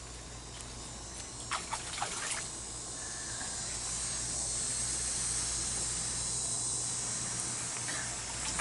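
Flowing river water running steadily and growing a little louder a few seconds in, with a couple of brief splashes about a second and a half and two seconds in.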